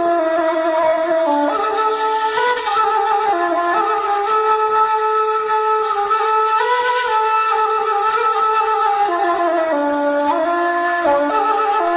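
A wind instrument with a reedy tone playing a slow melody of held notes that step up and down.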